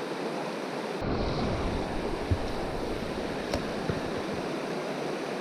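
A river rushing steadily over rocks. From about a second in until near the end, a low rumble of wind on the microphone is added, with a couple of faint clicks.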